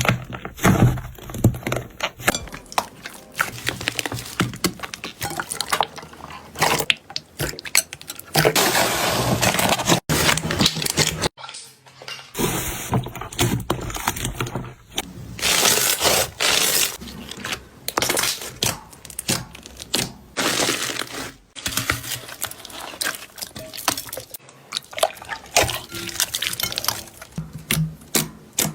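Slime squished and poked by hand: a dense, irregular run of sticky clicks and crackles, with a few longer stretches of thicker wet noise.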